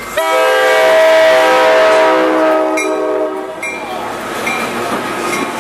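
A Coaster F40PH-2C diesel locomotive sounds its multi-note horn in one long blast of about three seconds as it passes close by. The rumble of the bilevel coaches rolling past follows.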